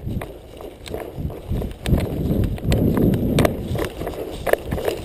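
Hurried footsteps and rustling as someone moves through tall dry grass, with irregular thuds and scattered sharp clicks.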